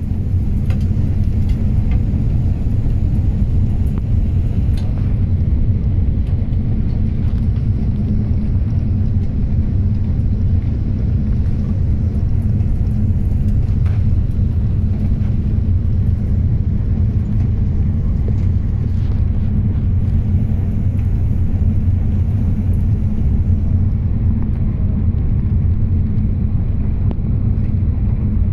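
Steady low rumble of a passenger train running at speed, heard from inside the carriage.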